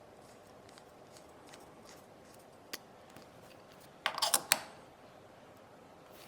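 Small hand tools clicking and scraping against a disassembled iPod nano, with a few faint ticks and then a short burst of sharp clicks about four seconds in.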